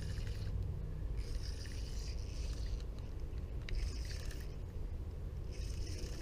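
A fishing reel cranked in short spells, a whirring that comes and goes about every couple of seconds, as the line is wound in against a snagged stick rather than a fish. Under it runs a steady low rumble of wind and handling on the camera.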